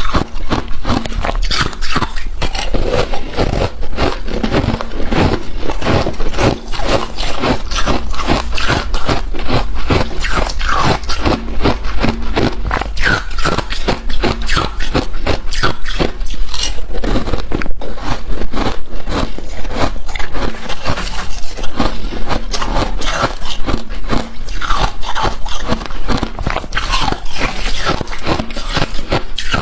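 Freezer frost being scraped off and crunched in a dense, irregular run of strokes, close to the microphone.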